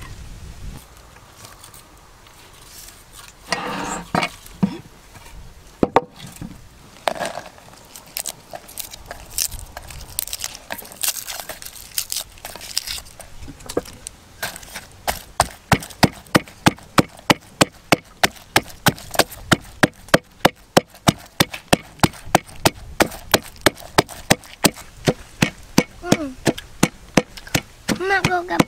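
Knife chopping food on a wooden cutting board in a quick, even rhythm of about three strokes a second, starting about halfway through after a few scattered knocks. A voice is heard briefly near the end.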